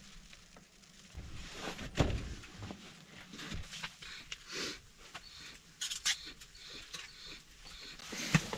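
Irregular knocks, clicks and rustling, with the sharpest knock about two seconds in and another near the end.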